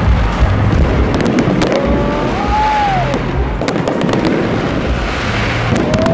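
Aerial fireworks display going off: dense continuous crackling and popping over a low rumble of bursts, with sharp reports scattered through it. A couple of short whistling tones rise and fall, one a couple of seconds in and another near the end.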